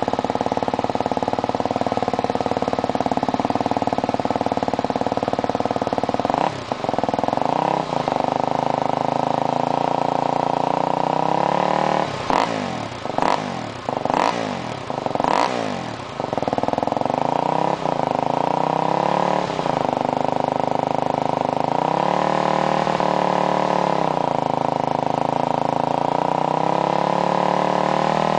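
2007 KTM 250 XCF-W four-stroke single-cylinder engine idling through a CRD Quiet Power aftermarket muffler and being blipped on the throttle. There are single revs now and then, a quick run of about five blips in the middle, and one longer held rev later on.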